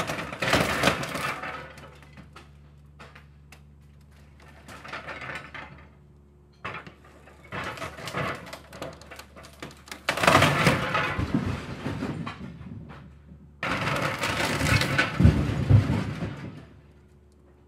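Excavator demolishing a wooden house: several long bursts of cracking timber and crashing debris, the loudest and longest near the end, over the steady low hum of the excavator's engine.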